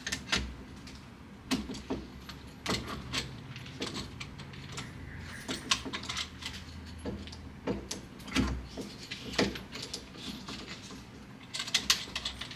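Handling noise from a fishing pole mount being assembled: irregular clicks, taps and knocks of the parts as the horizontal clamp is loosened and the horizontal tube is fitted, with a quick cluster of clicks near the end.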